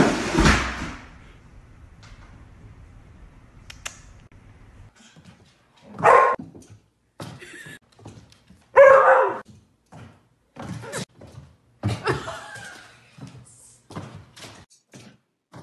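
A plastic laundry basket clattering down wooden stairs at the start. Then a dog barks loudly twice, about six and nine seconds in, and once more more weakly, with many short sharp taps in between.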